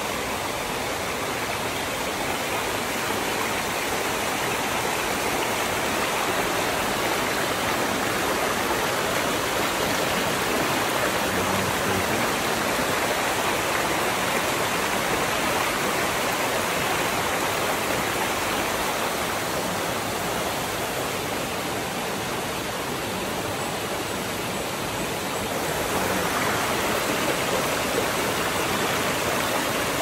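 Shallow rocky river rushing and splashing over stones and small cascades, a steady wash of water noise that grows a little louder in the last few seconds.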